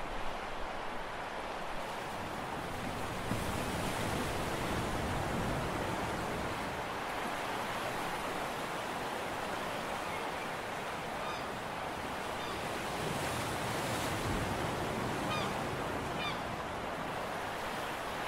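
Steady wash of the sea and wind on the microphone. Two brief clusters of short, high bird calls about two-thirds of the way in and again near the end.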